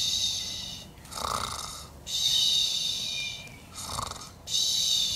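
Cartoon-style snoring of sleeping characters: a rasping snore in, then a long whistling breath out, over and over about every two and a half seconds.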